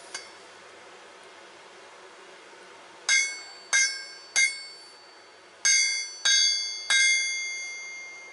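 Hammer blows ringing on a steel anvil. There are three strikes about two-thirds of a second apart, a short pause, then three more, each leaving a bright metallic ring that fades.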